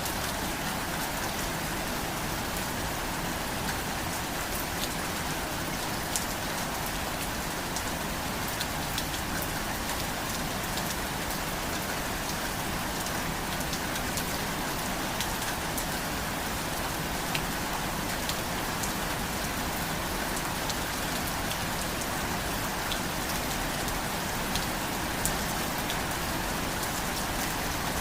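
Steady rain falling, an even hiss with scattered sharp drop clicks throughout.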